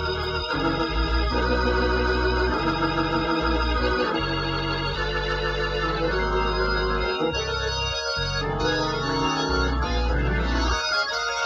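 Hammond B2 organ playing sustained chords through a rebuilt Leslie 122 rotating speaker, its horn spinning, with a low bass note under chords that change every second or two.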